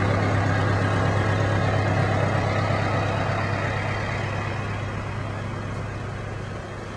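An engine running steadily with a low hum, slowly fading away over the few seconds.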